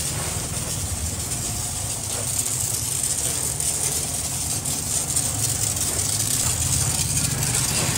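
Steady low hum of a running motor or engine, with an even hiss over it.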